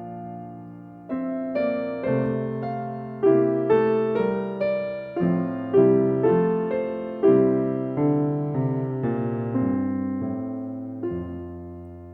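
Slow, gentle piano music: single notes and chords struck one after another, each ringing and fading away, with a pause a little after the start and a low chord near the end.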